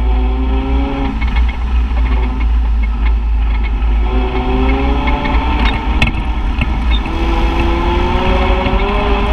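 Side-by-side UTV engine running under a heavy low rumble while driving over rough ground. The engine note stays low for the first few seconds, then rises steadily as the machine speeds up.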